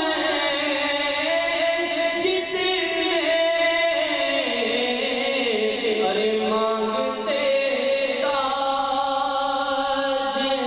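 A man singing a naat, an Islamic devotional song, into a microphone, in long, slowly wavering held notes.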